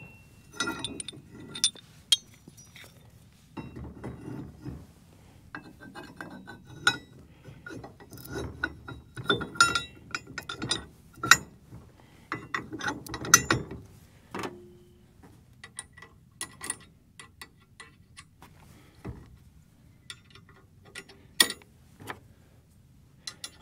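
Bulletproof adjustable drop hitch being reset: its pins are pulled and the ball mount is shifted and lowered to bring the 2-inch ball into use. Irregular metal clicks, clinks and scraping rattles come in several clusters, with a brief ring about halfway through.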